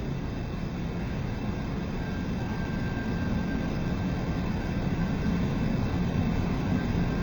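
Matsuura MC-510V vertical machining center running with a steady low hum that slowly grows louder; a faint high whine joins about two seconds in.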